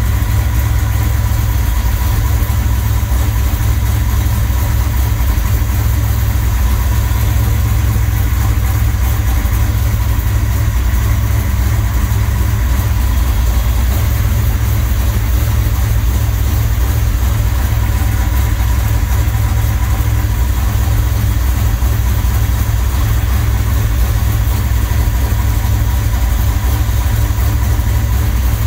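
1969 Chevelle SS 396's big-block V8, running on Holley Terminator Stealth fuel injection, idling steadily with a low, even sound.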